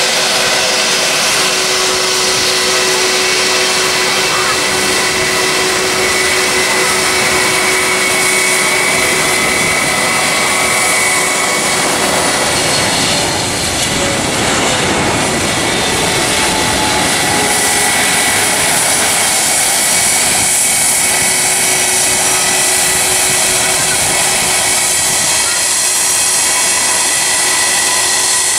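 British Airways Boeing 777's twin jet engines on final approach, a steady loud whine and rush that swells as the airliner passes low overhead about halfway through, the pitch dropping as it goes by.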